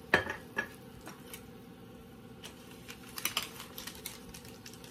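Clicks and taps of an oil bottle and a stainless steel skillet as olive oil is poured into the hot pan: a sharp clink just after the start, a second soon after, then scattered quieter clicks.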